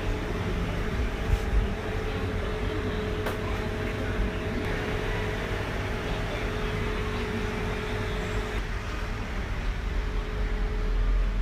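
Steady background hum and hiss from a machine or ventilation, with a few light taps in the first few seconds.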